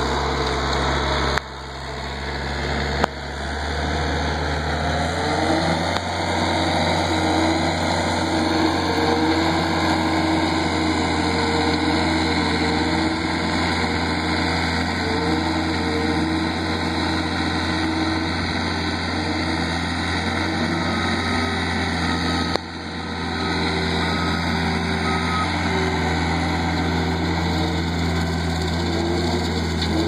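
Cat 247 compact track loader's diesel engine running steadily under load while it drives a hydraulic-motor-powered King Kutter rotary brush cutter through tall grass, its pitch wavering as the load changes. The sound drops abruptly a few times and builds back up.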